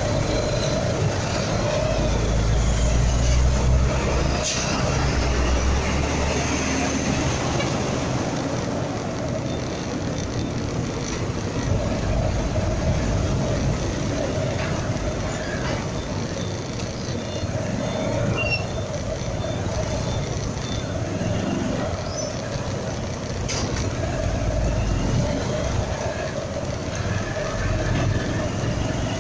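Dense slow traffic of idling diesel trucks and small motorcycle engines, heard from a motorcycle filtering between lorries at walking pace. A deep truck engine rumble swells about two seconds in and again near the end, with a couple of brief sharp sounds.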